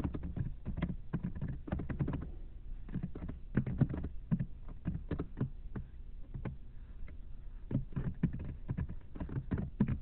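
Typing on a computer keyboard: an uneven run of key clicks, thinning out briefly past the middle.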